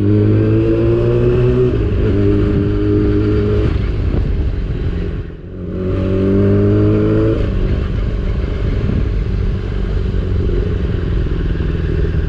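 Yamaha R6's 600 cc inline-four running loud under way, climbing in pitch under throttle for the first couple of seconds. It eases off briefly about five seconds in, then pulls up in pitch again before settling into steadier running.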